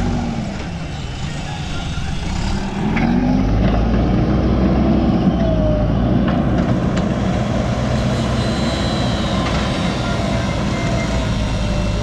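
JCB backhoe loader's diesel engine running under load as the front bucket pushes and levels dirt, revving up about three seconds in and staying at the higher pitch.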